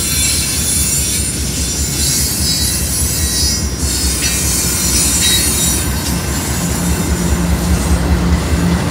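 Double-stack container well cars rolling past: a steady rumble of steel wheels on rail, with high-pitched wheel noise over it. About two-thirds of the way in, a steady engine hum rises in from the approaching rear DPU, a GE C44-9W diesel locomotive.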